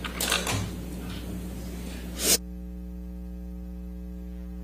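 A few faint rustles, then a sharp click a little past halfway and a steady electrical mains hum from the courtroom's audio playback line as it is switched in.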